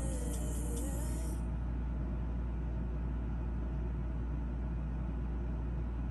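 A steady, loud low hum or rumble, with the tail of promo music from the TV speaker cutting off about a second and a half in.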